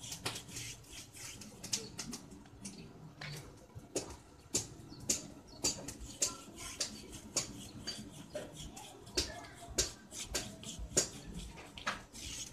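Light, irregular clicks and taps, a few a second, from a paintbrush working paint over ribbed-steel rebar crowbars.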